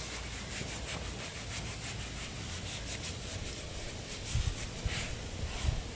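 Cloth rubbed briskly back and forth on a plastic car headlight lens with insect repellent, about four scrubbing strokes a second, polishing off the hazy oxidation. A few dull low thumps come in the second half.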